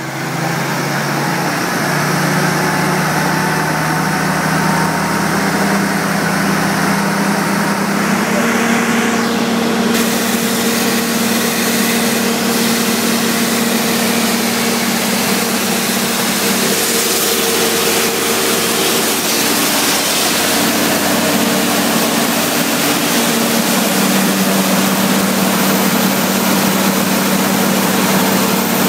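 Gardner Denver 20,000 psi trailer-mounted water jetter running under load: the Perkins diesel engine and high-pressure plunger pump make a steady drone under the loud, even hiss of the ultra-high-pressure water jets from the lances. The hiss grows fuller about ten seconds in.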